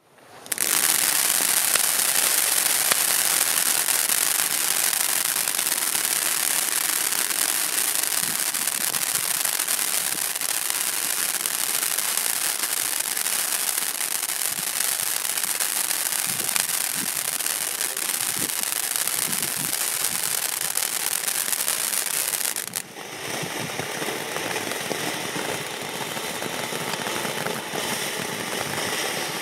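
Nico 'I Love Unicorns' firework fountain battery spraying sparks with a loud, steady hiss that starts almost at once. About 23 seconds in it switches to its next effect: a brief dip, then a lower, rougher spray with crackling.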